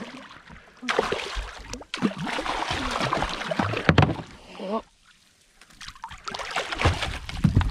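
Noise aboard a small fishing boat at sea, with a sharp knock about four seconds in and a brief lull a second later.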